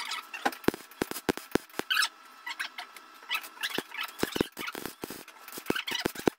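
Welding arc crackling and popping in short, irregular bursts while a repair is welded into a rusted car floor panel.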